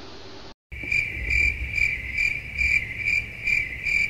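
Crickets chirping in an even rhythm of about two and a half chirps a second, over a low hum. This is the comic 'awkward silence' cricket sound effect. It starts about two-thirds of a second in, after a moment of faint room tone and a short cut to silence.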